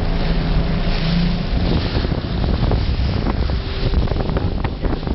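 A motorboat's engine running with a steady low hum, under heavy wind buffeting the microphone, with a few short knocks in the second half.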